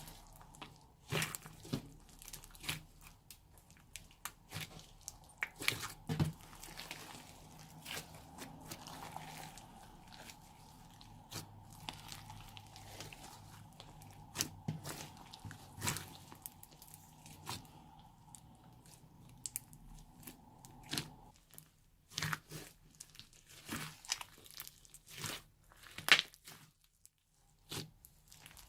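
Old slime being squished, stretched and folded by hand, with irregular crackles and sticky pops.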